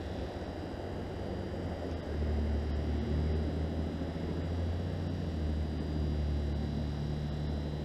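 Low, steady rumble of a distant engine, swelling about two seconds in and holding.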